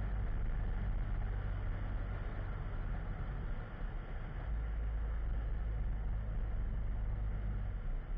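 Steady driving noise of a vehicle travelling along a paved road: road and wind noise over a heavy low rumble.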